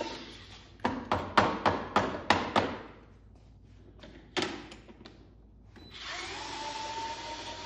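Small electric screwdriver running as it backs out the top-cap screws of a Minn Kota Powerdrive trolling-motor head: a steady whine dying away at the start, then starting again about six seconds in. In between come a quick run of about eight sharp clicks and knocks, and one more knock a little past the middle.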